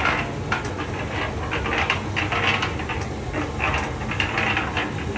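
200-litre electric concrete mixer running: a steady motor hum with continuous rattling and clicking as the drum turns.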